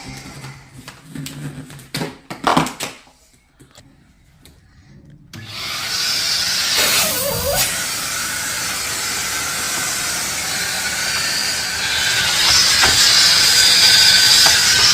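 A few clicks and knocks of handling, then about five seconds in a Numatic Henry-family cylinder vacuum cleaner switches on and runs steadily. A high whine grows louder near the end.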